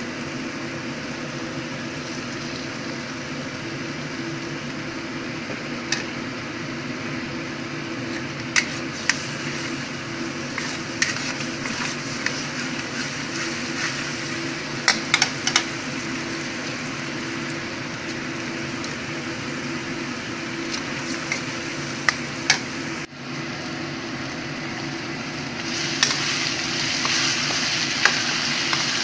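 Metal spoon stirring a pan of simmering broth, with sharp clicks and scrapes of the spoon against the pan over a steady bubbling hiss and low hum. Near the end the hiss grows louder.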